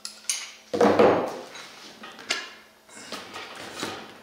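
Knocks and clatter of parts being handled on a workbench as a large rubber-tyred wheel is taken off the axle hub of a 1/5-scale RC monster truck. The loudest knock comes about a second in, with a sharp click a little after two seconds.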